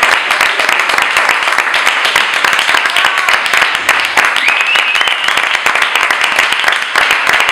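Audience applauding steadily, with a short high rising cry standing out above the clapping about halfway through.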